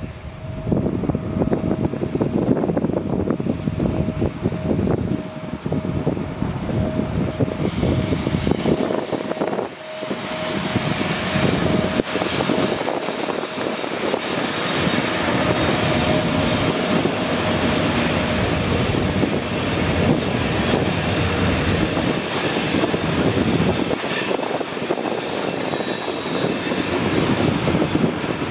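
Freight train hauled by two ÖBB electric locomotives passing close by: a low rumble with a steady electric hum while the locomotives approach and go by, then the steady rolling noise and clatter of the freight wagons' wheels on the rails.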